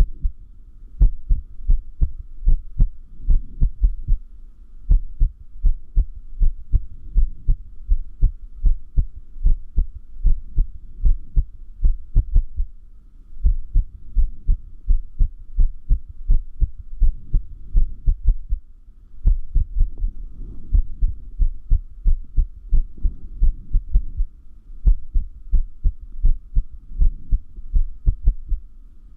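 Human heartbeat with an irregular rhythm (arrhythmia): paired lub-dub beats run in uneven stretches, broken every few seconds by a noticeably longer pause.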